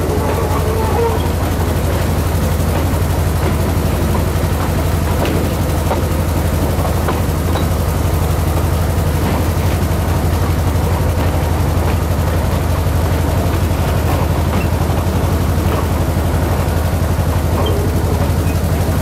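Train's engine running with a steady low drone, heard from aboard the moving train.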